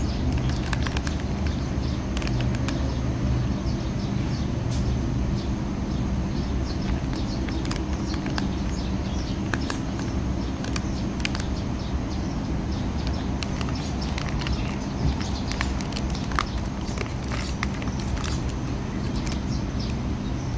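Plastic ice-cream wrapper crinkling and clicking in scattered small crackles as it is handled, over a steady low rumble.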